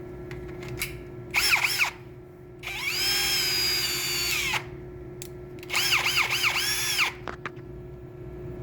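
Ridgid cordless drill, just fitted with a new chuck, run with no load in three bursts. First a short squeeze that spins up and slows, then a steady run of about two seconds, then several quick trigger squeezes with the whine rising and falling.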